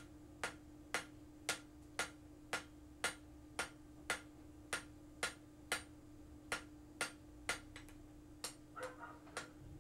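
Hand hammer striking a red-hot 16 mm round steel bar on the anvil, drawing the end out to a square taper with even blows about two a second. The blows stop about eight seconds in, followed by a few lighter knocks, and a steady low hum runs underneath.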